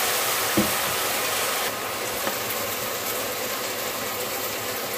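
Onion and capsicum frying in sauce in an aluminium kadai over a high gas flame: a steady sizzle, with a light knock about half a second in and the sound dropping slightly a little before two seconds in.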